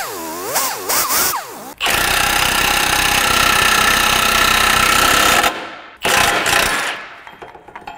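Pneumatic tool run on a front suspension ball joint's stud nut. Its whine wavers up and down at first, then it runs steadily with a hammering rattle for about three and a half seconds, and after a short pause gives one shorter burst.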